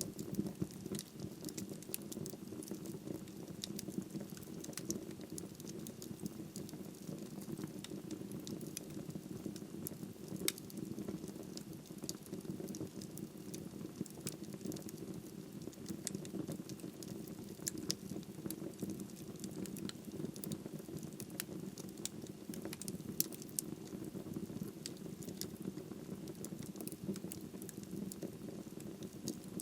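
Wood fire burning in a fireplace: a steady low rush of flame with frequent small, irregular crackles and pops of burning wood.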